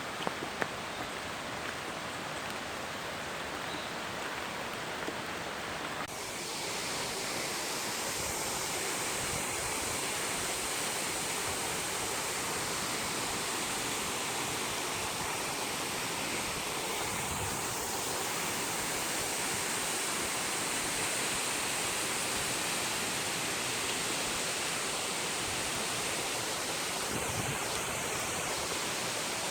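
Steady rush of the 300-foot Maracas Waterfall. About six seconds in it grows slightly louder and brighter.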